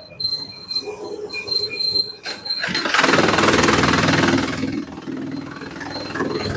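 Sawmill machinery running, with a loud harsh squealing burst about three seconds in that lasts about two seconds before easing back to a steady machine noise.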